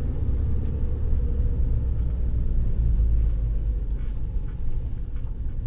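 Mahindra XUV500 on the move, its six-speed manual gearbox giving a steady low hum. This is the humming noise under load that the mechanic puts down to worn, loose gearbox bearings and synchronizers.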